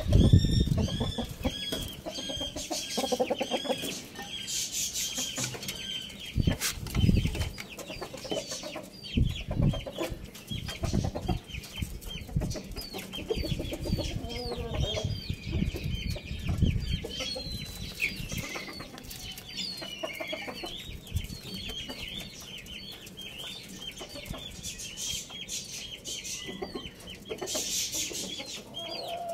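Domestic chickens, a rooster and a hen, clucking, with many short high chirps throughout and occasional low thumps.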